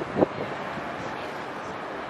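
Steady outdoor street ambience: a low haze of traffic with wind buffeting the microphone, and one short louder sound just after the start.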